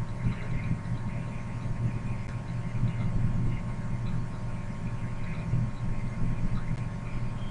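Steady low electrical hum with faint background noise.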